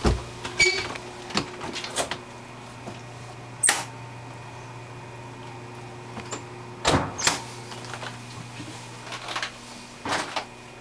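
Scattered knocks and bumps of footsteps and cabin doors and fittings over a steady low hum, with the loudest knocks about three and a half seconds and seven seconds in.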